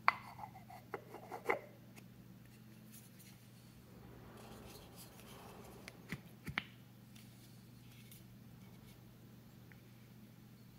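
Lid of a small yew box being fitted onto it by hand: a few sharp wood-on-wood clicks as it is set on, a soft rubbing as it is pushed down, then two more clicks about six seconds in as it seats.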